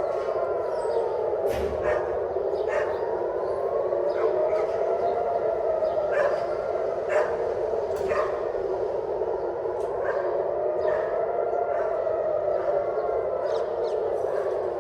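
Civil-defense air-raid siren wailing, its pitch rising and falling in slow cycles of about five seconds, warning of an incoming missile attack. A dog barks repeatedly over it in short, irregular yelps.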